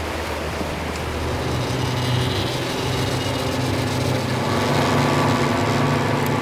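Yamaha outboard motor running steadily as the bay boat moves at high-speed trolling pace, with the rush of wake water under a steady engine hum.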